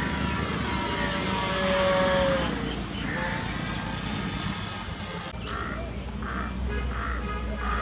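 Whine of a small RC airplane's brushless motor in flight, sliding slightly down in pitch and fading out about two and a half seconds in. From about five seconds in, a crow caws repeatedly, about twice a second.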